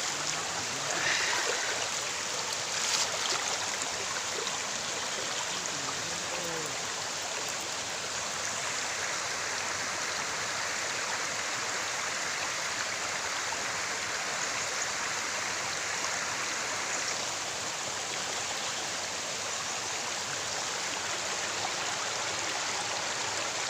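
Steady rushing of a flowing forest stream, with a couple of brief knocks in the first few seconds.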